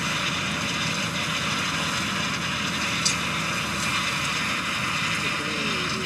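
Tractor running steadily as it pulls a Pushpak ratoon manager's tines through dry, hard soil and sugarcane trash, with one sharp click about three seconds in.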